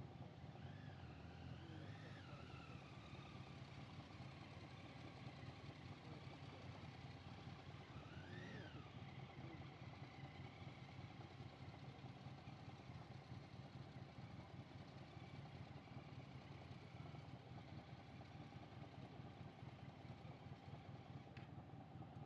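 Near silence: a faint steady low hum, with a few faint rising-and-falling whistles about a second in and again about eight seconds in.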